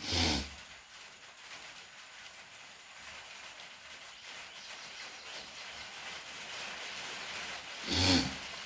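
Marker pen writing on paper: a soft, continuous scratching of pen strokes. A short voice sound is heard at the very start and again near the end.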